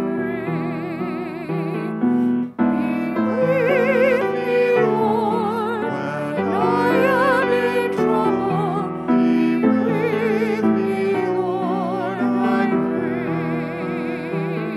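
A woman's voice singing a responsorial psalm refrain with vibrato, in short phrases over steady piano accompaniment.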